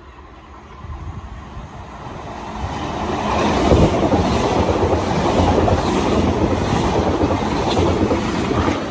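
Southern Class 313 electric multiple unit approaching and running past close alongside the platform. Its wheels rumble on the rails, growing louder over the first few seconds and staying loud as the coaches go by.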